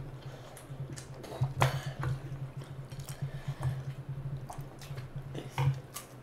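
Close-up eating sounds: chewing and hands squishing curry-soaked rice, with a few short clinks of a metal serving spoon against the curry dish, over a steady low hum.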